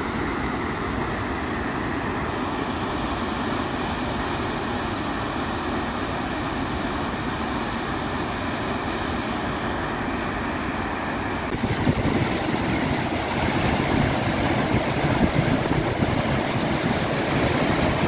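Lasifashaj River rushing through a rocky gorge in white-water rapids and falls, a steady roar of water. About eleven seconds in it turns louder and rougher as the view moves closer to the cascade.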